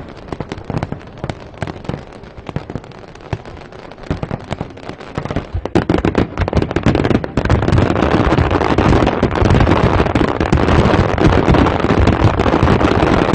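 Fireworks going off: scattered bangs and crackles at first, building from about six seconds in into a much louder, dense, almost continuous barrage.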